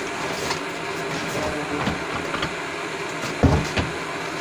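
Steady whir and hiss of a running induction furnace, with two dull knocks close together about three and a half seconds in.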